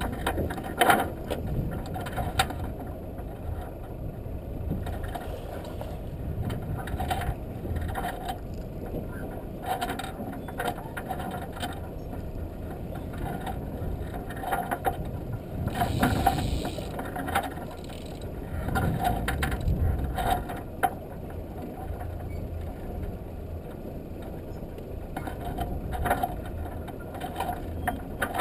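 A yacht's headsail being rolled in on its roller furler: irregular mechanical clicks every second or two from the furling gear, over a steady rush of wind and sea.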